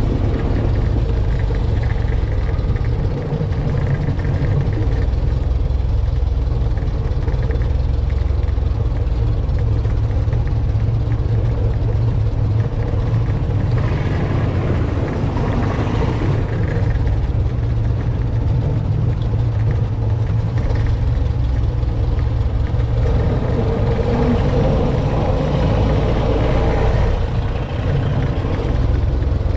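Engine of an early antique touring car running steadily as the car drives slowly, an even low rumble with no pauses.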